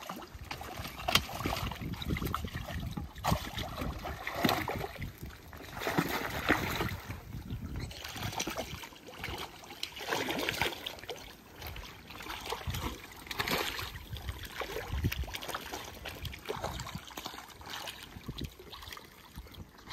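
Water splashing and sloshing in irregular bursts, stirred up by otters playing in a small pool.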